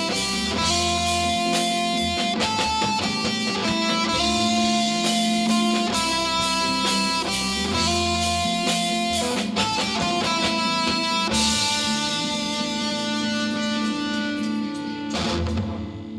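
Rock band playing the instrumental ending of a song on guitars with a steady rhythm, then a final chord held ringing for the last few seconds and fading out at the very end.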